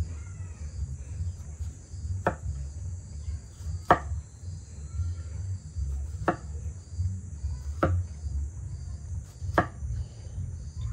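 Kitchen knife cutting through cucumber slices and knocking on a wooden cutting board, five sharp knocks spaced a second and a half to two and a half seconds apart. Crickets chirp steadily behind.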